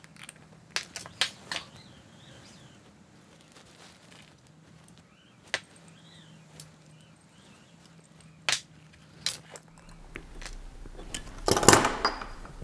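Sparse clicks and clinks of small metal parts and hand tools against an aluminium block as idler pulleys are fitted by hand. Near the end comes a louder clatter as pliers are set down on the wooden bench.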